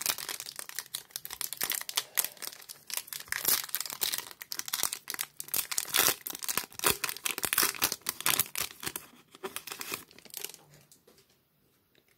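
Foil wrapper of a baseball card pack being torn and peeled open by hand, with irregular crinkling and crackling that dies away about a second before the end.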